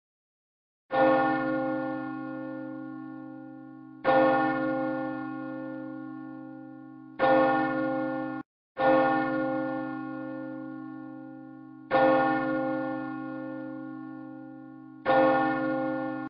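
A single church bell tolled slowly: six strikes of the same note, about three seconds apart, each ringing on and fading away. The third strike breaks off suddenly and the fourth follows it quickly.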